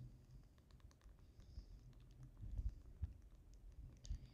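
Nintendo Switch buttons clicking faintly and irregularly as a game is played, with a couple of soft low thumps a little past halfway.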